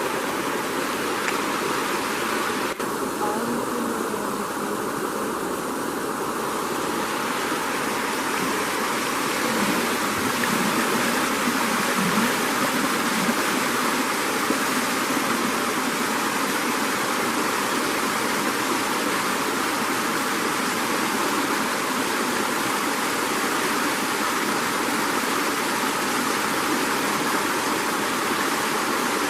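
Steady rushing of flowing river water, an even hiss.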